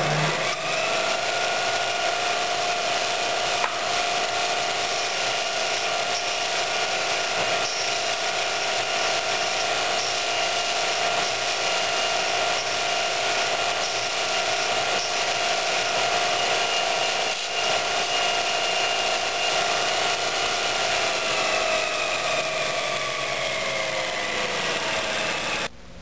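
JET bench grinder driving a Multitool belt attachment with a polishing belt, starting up and running with a steady whine while a railroad spike head is buffed with compound. Near the end the whine falls in pitch as the motor slows.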